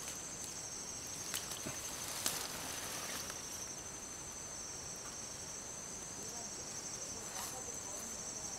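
Insects trilling steadily in a high, pulsing chorus. A few light clicks and rustles of grass being handled are heard over it, the sharpest about a second and two seconds in and again near the end.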